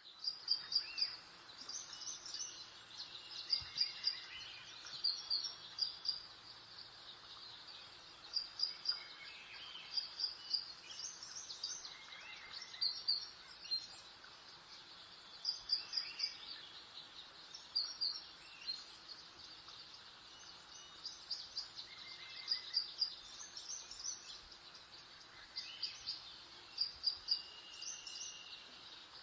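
Small birds chirping: clusters of short, high chirps come every few seconds, with a few lower whistled notes between them, over a faint steady hiss.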